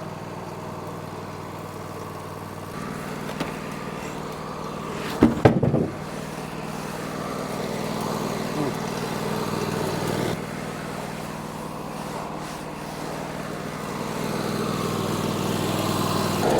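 Wood-Mizer LT40 band sawmill's 26.5 hp engine running steadily, with a short loud clatter about five seconds in.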